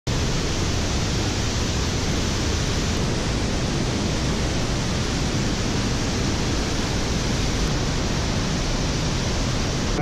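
The Pailón del Diablo waterfall heard close to its plunge pool: a steady, even rush of falling water with no break or change.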